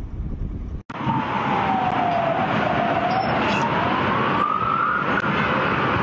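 Emergency vehicle siren wailing, its pitch gliding slowly down, then up, then down again, over a steady wash of noise. Before it, a low rumble cuts off suddenly about a second in.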